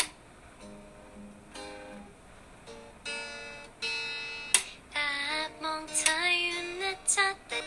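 Acoustic guitar picked softly, a few single notes and chords. About halfway through, a young woman's voice starts singing over it.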